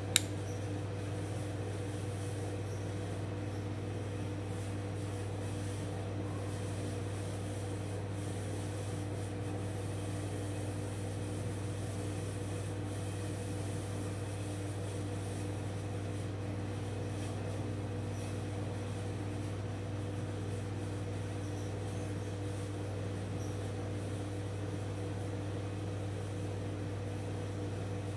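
Steady low machine hum, unchanging, with a couple of fixed higher tones over it. A single sharp click right at the start, as the folding knife is handled.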